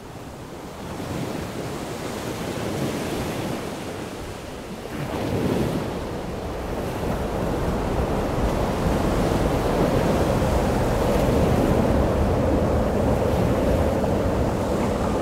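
Ocean surf washing on a beach, with wind on the microphone. The waves swell louder about five seconds in and then run on steadily.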